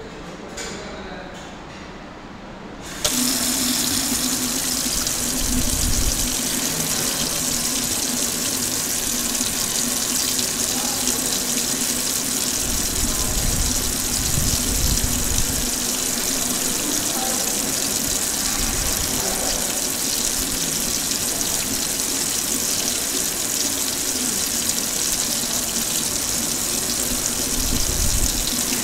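Water tap running steadily into a stainless steel sink, starting suddenly about three seconds in, with a steady low hum beneath the splashing.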